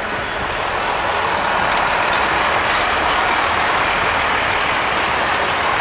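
Class 165/166 Networker Turbo diesel multiple unit passing close by, its wheel and engine noise growing louder, with faint clicks from the wheels on the track.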